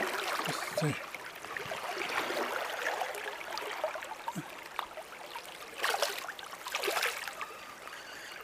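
Fast, shallow river water running and gurgling over stones, with a couple of brief splashes about six and seven seconds in.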